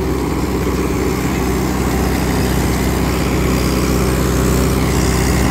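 Mahindra 595 DI Turbo tractor's diesel engine running steadily under load, driving a rotavator through soft field soil. The tractor is fitted with a quiet silencer, and the sound grows a little louder toward the end.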